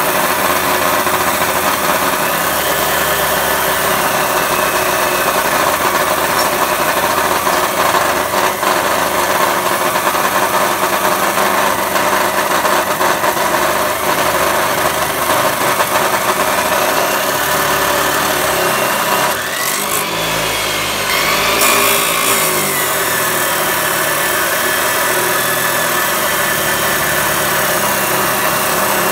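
A 14-inch (355 mm) abrasive cutoff wheel on a chop saw grinding through a solid round metal bar, a steady loud cutting noise over the saw's running motor. About two-thirds of the way through, the cutting eases briefly and then resumes.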